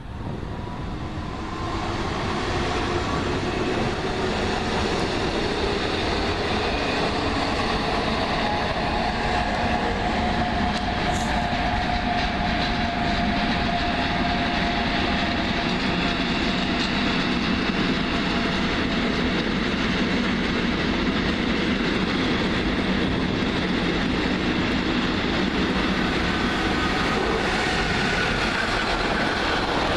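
A train running past on the tracks: continuous rumble of wheels on rail with faint whining tones drifting in pitch. The sound builds over the first couple of seconds, then holds steady.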